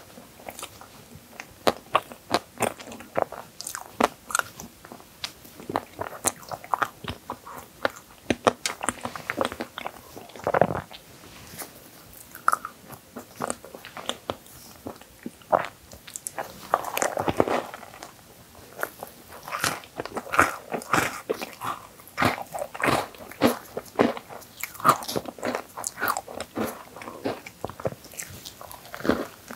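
Close-miked eating: bites and chewing of an Oreo whipped-cream crepe, with crunching of the Oreo cookie pieces as a quick run of sharp clicks that grows denser in the second half.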